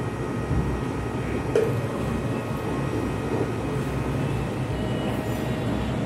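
Steady low rumbling background noise, with a single short knock about one and a half seconds in as the serving ladle strikes the cooking pot.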